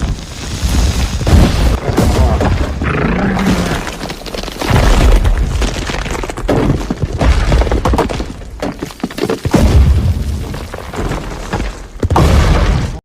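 Film destruction sound effects: a series of deep booms with crashing, shattering debris, heavy impacts arriving every second or few seconds.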